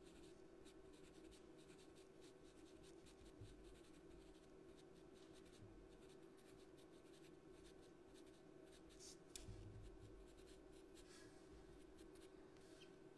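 Faint scratching of a white pastel pencil stroking over pastel paper in many short, uneven strokes.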